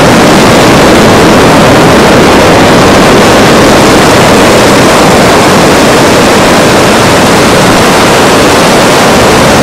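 Loud, steady rushing noise of wind and surf on a beach, with no breaks or separate sounds.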